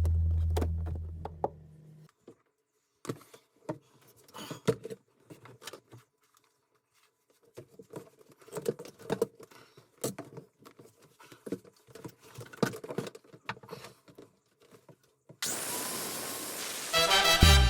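Scattered light clicks, knocks and clinks of small hard objects being handled, with near-silent gaps between them; no grinder is running. Music fades out at the start, a rush of hiss comes in near the end, and loud music follows.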